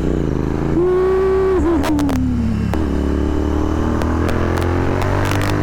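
Royal Enfield Continental GT 650 parallel-twin with a Red Rooster aftermarket exhaust, revs rising and held about a second in, then falling off as the throttle closes. The exhaust crackles on the overrun: a few sharp pops around two seconds in and a rapid string of them near the end.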